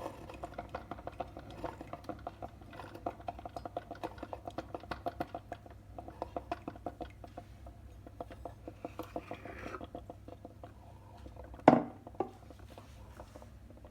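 Salter One Cup filter coffee maker brewing: rapid crackling and sputtering over a steady low hum, with one sharp knock about twelve seconds in.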